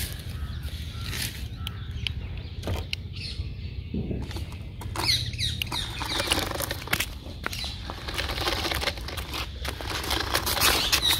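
Toy remote-control stunt car driving over brick paving: its small electric motors whirring and the car clattering and clicking over the bricks, louder from about five seconds in.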